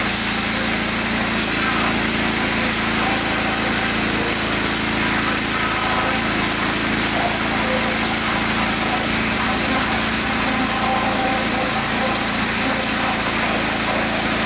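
Petrol-engined pressure washer running steadily, its small engine under the hiss of the high-pressure water jet blasting into mud and soil.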